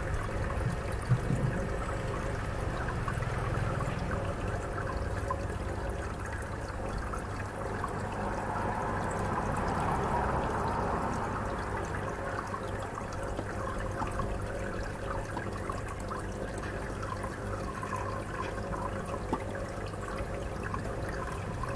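Steady rushing background noise with a faint hum, and one sharp click about a second in.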